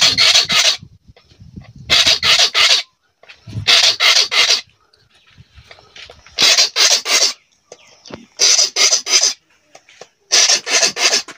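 Hand file rasping along a khukuri's steel blade in six bursts of three or four quick strokes, each burst under a second, with short pauses between.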